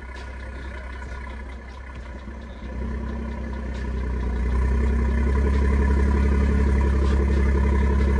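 BMW coupe's engine idling through its exhaust, a steady deep drone that grows louder about three seconds in and settles into an even, louder idle.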